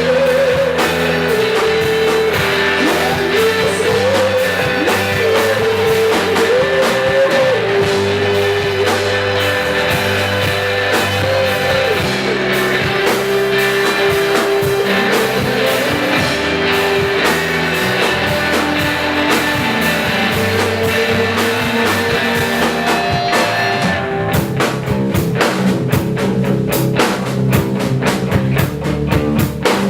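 Rock music with singing and guitar over a steady beat; about 24 s in the melody line drops out and a busier drum-driven passage takes over.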